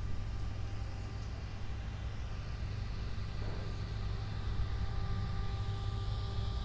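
Steady low rumble of a car engine running in the pits, with a faint higher hum joining about halfway through.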